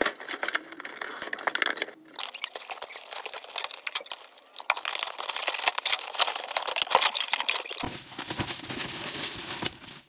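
Cardboard box and its packing being opened and handled by hand: dense rustling, scraping and crinkling, turning brighter and hissier near the end.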